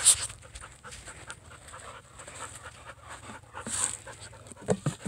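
A dog panting in quick, short breaths, with louder breaths near the start and again near the four-second mark.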